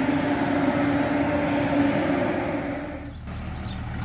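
Steady mechanical hum with one strong low tone, cutting off abruptly about three seconds in; a quieter, lower hum follows.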